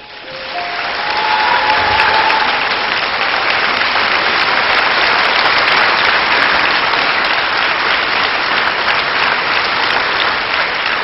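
Large audience applauding, swelling up over the first second or so and then holding steady, with the last notes of the song fading under it at the start.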